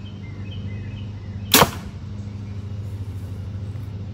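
A single compound bow shot about a second and a half in: a sharp snap as the string is released and the arrow is driven through the paper tuner into the target. A steady low hum runs underneath.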